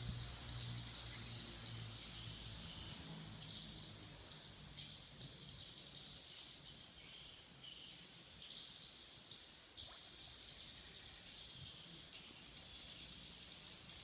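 Insects shrilling in a steady, high-pitched continuous drone. A faint low hum fades out in the first few seconds.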